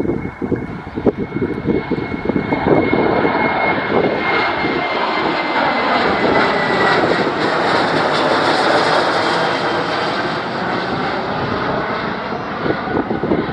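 Boeing 737-800 jet at takeoff power passing the listener as it climbs out, with its twin CFM56-7B turbofans running. A high engine whine falls slowly in pitch over the first several seconds while the roar builds to its loudest about eight or nine seconds in and then eases off.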